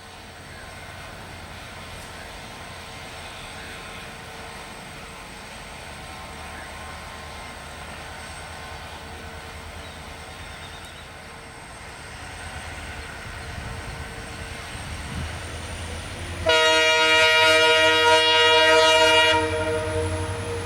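EMD diesel locomotive approaching, its low engine rumble slowly growing louder, then sounding a long multi-tone horn for about three seconds near the end.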